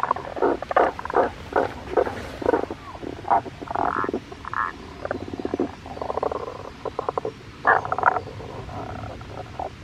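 A chorus of frogs: many short, rattling croaks overlapping one another without a break.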